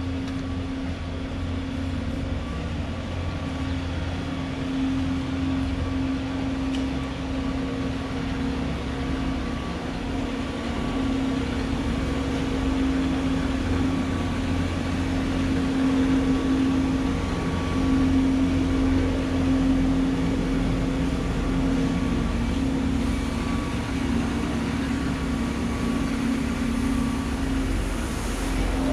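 A vehicle engine running steadily: a constant hum with a low rumble beneath, a little louder around the middle.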